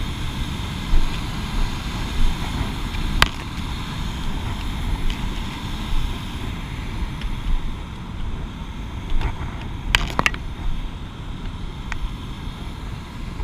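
Rushing mountain river water pouring over rock slabs and small cascades, with wind buffeting the microphone in an uneven low rumble. A sharp click about three seconds in and two more close together about ten seconds in.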